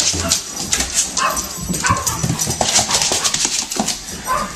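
A dog giving a few short yips over steady clicking and scrabbling noise.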